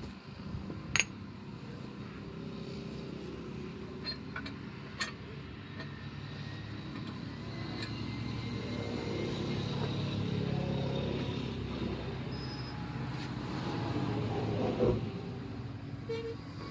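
A motor vehicle's engine running nearby, growing louder through the middle and fading near the end, with a few sharp clicks and taps.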